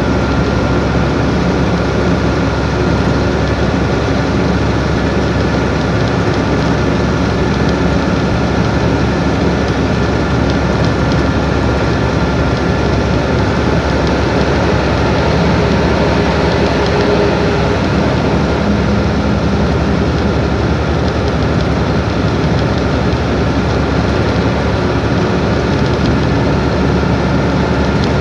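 Truck engine running with a steady, even drone, with no pauses or changes.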